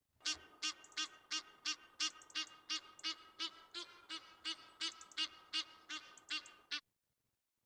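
Egyptian goose giving a long series of harsh, evenly spaced honking calls, about three a second, which stop abruptly near the end.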